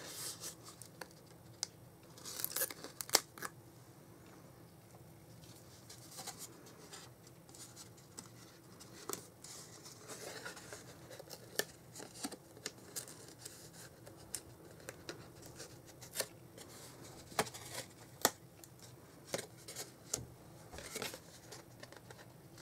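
Cardstock being handled and rubbed down by hand: quiet rustling and scraping of paper, broken by scattered light taps and clicks at uneven intervals.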